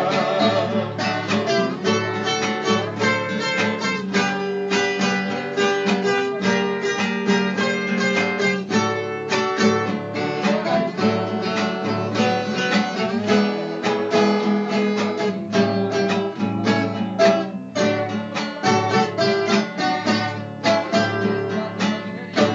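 Instrumental music: plucked acoustic strings play quick runs of picked notes over a steady bass line, with no singing.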